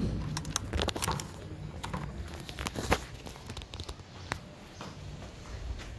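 Footsteps and handling noise on a hand-held phone's microphone: scattered clicks, knocks and rustles, the sharpest knock about three seconds in.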